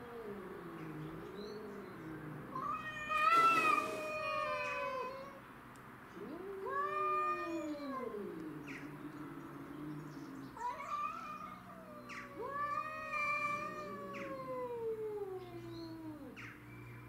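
Domestic cats caterwauling in a territorial standoff: long, wavering yowls that rise and fall in pitch, at times two voices overlapping, loudest a few seconds in.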